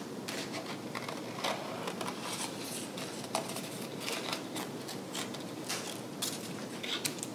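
Small craft scissors snipping through paper in a series of short, irregular cuts, working around a small circle to cut out a finger hole in a paper puppet.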